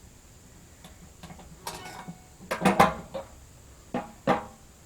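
Handling a plastic gas can to refuel a generator: a string of clicks and clunks from the can and its spout. The loudest clatter comes about two and a half seconds in, and two more knocks follow near the end.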